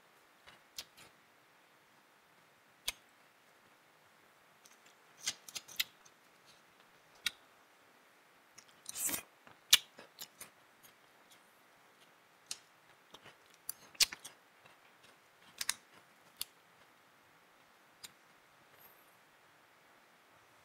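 Metal spoon clicking and scraping against a paper cup of rolled ice cream: scattered sharp clicks and short scrapes, with a longer scrape about nine seconds in and the loudest clicks around ten and fourteen seconds in.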